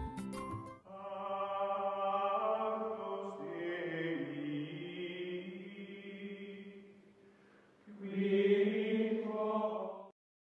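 Outro music: choir-like chanting in long held chords that fade away, then a second swell about eight seconds in that cuts off abruptly near the end. A few clicks sound in the first second.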